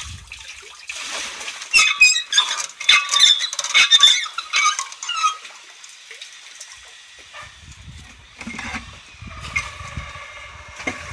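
Water splashing and sloshing in loud, uneven bursts, with squeaky high sounds mixed in, then a quieter low rumble near the end.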